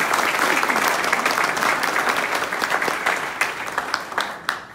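Audience applauding, dense clapping that thins to a few last claps and dies out near the end.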